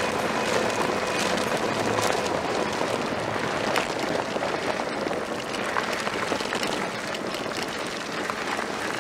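Fat tyres of an electric bike rolling over a dirt and gravel road: a steady crackling noise peppered with small clicks of grit.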